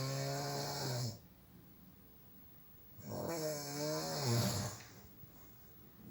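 Snoring: two long snores about three seconds apart, each a low buzzing drone with a hiss over it.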